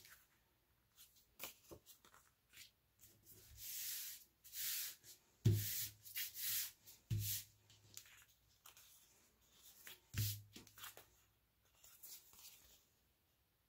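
Hands rubbing and smoothing a glued cardstock piece down onto another sheet: dry paper scraping and rustling in several strokes, with three soft thumps from about halfway through.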